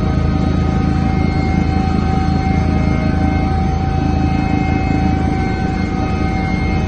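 Helicopter cabin noise in flight: engine and rotor running steadily, a constant whine of several steady tones over a heavy low rumble.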